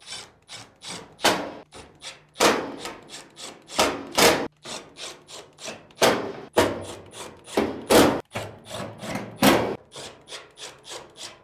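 Irregular knocks, taps and rubbing from refitting screws and handling the sheet-metal back of a Samsung dryer, with a few louder thuds about every one and a half to two seconds.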